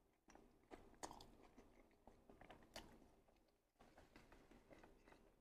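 Faint, close-up sounds of a person biting into and chewing a chili cheese dog dipped in cheese dip: irregular soft wet clicks and smacks.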